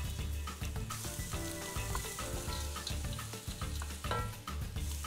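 Fresh corn kernels, onion and garlic sizzling in olive oil in a pot while being stirred with a wooden spoon, with a fine steady crackle.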